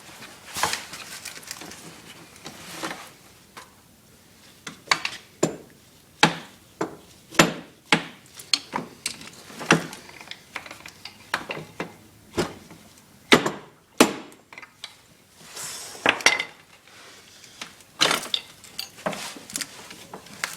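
A hammer striking metal in irregular sharp clanks, some single and some in quick clusters, as the swingarm pivot bolt of a Honda TRX450R ATV is driven out.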